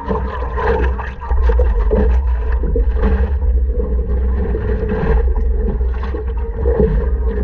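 Water splashing and lapping against a stand-up paddleboard as it is paddled, with irregular paddle splashes. Heavy wind rumble on the board-mounted camera's microphone runs underneath and is the loudest sound.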